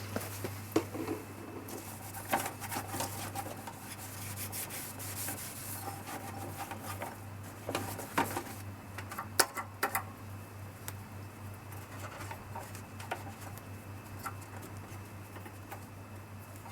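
Hand cleaning around a lawnmower's fuel tank area: irregular rubbing and scraping, with a few sharp clicks about eight to ten seconds in.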